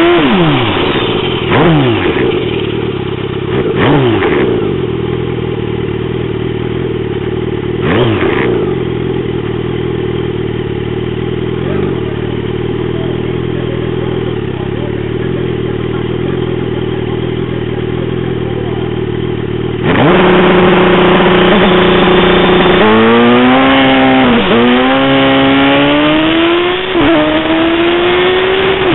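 Superstreet drag-racing motorcycle engine, heard close up from the bike itself: three quick revs, then a steady idle at the start line. About two-thirds of the way in it launches with a sudden jump in loudness and accelerates hard, its pitch climbing and dropping at two upshifts.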